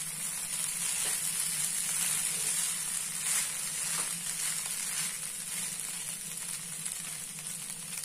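Poha (flattened rice) sizzling in a hot nonstick pan while a spatula stirs and scrapes through it, with a steady hiss and soft scraping strokes.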